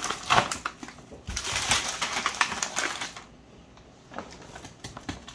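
Plastic grocery packaging crinkling and rustling as items are handled and pulled from a shopping bag, busy for the first three seconds and then fainter with scattered crackles.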